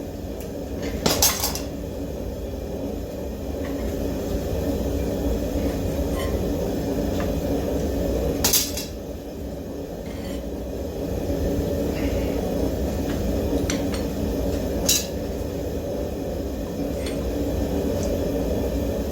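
Steel coil spring clinking against an iron pipe and leg vise as it is bent straight, with three sharp metallic clinks over a steady low noise.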